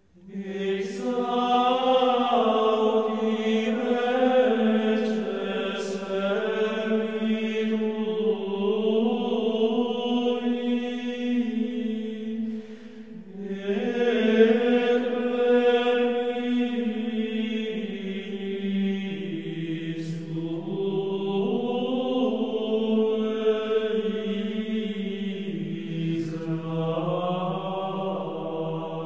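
Background music of chanting voices holding long, slow notes that step up and down in pitch, breaking off briefly near the middle before carrying on.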